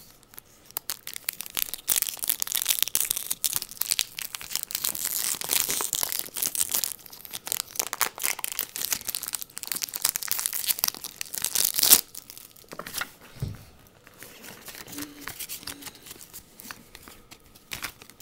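A foil Pokémon booster pack wrapper being torn open and crinkled for about ten seconds, stopping sharply. Quieter handling of the cards follows, with scattered light ticks.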